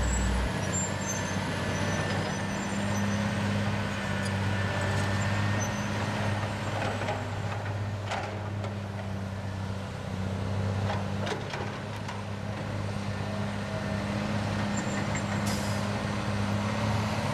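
Heavy diesel earthmoving machinery running steadily at work, a constant low engine drone, with a few short knocks and clanks from the machines.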